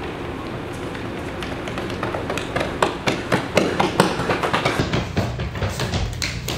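Running footsteps on concrete: quick taps and thumps that grow louder as they come closer, over a steady low hum.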